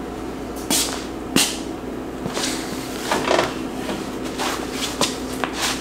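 Scattered sharp knocks and clicks of hands and parts being handled in a car's engine bay, about ten of them at uneven intervals, over a steady low hum.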